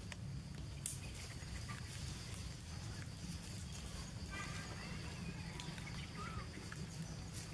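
Outdoor ambience among trees: a steady low rumble with scattered faint rustles and clicks, and two brief high chirping calls, about four and six seconds in.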